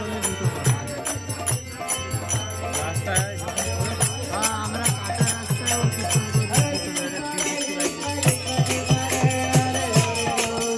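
Devotional kirtan: hand cymbals jingling in a steady beat over drum strokes about twice a second, with voices chanting along. The drum pauses briefly about seven seconds in.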